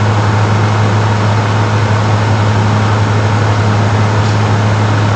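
Steady machine hum with a constant rushing noise, unchanging throughout, like a motor-driven fan running close by.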